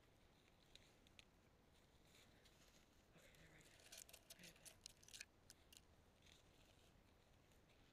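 Near silence: faint room tone, with a cluster of faint, short clicks and ticks from about three to five and a half seconds in.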